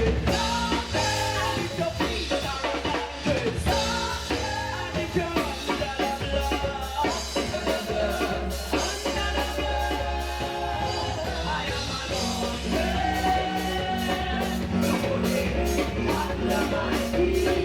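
Live gospel praise music with a band: drum kit keeping a steady beat, bass and guitar, with singing voices.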